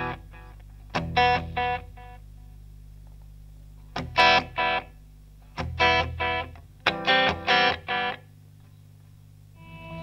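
Electric guitar through a PT2399-based delay pedal (Madbean Dirtbaby) set for a single repeat, playing short, choppy chord stabs in four bursts with pauses between. A steady low hum sits under the pauses.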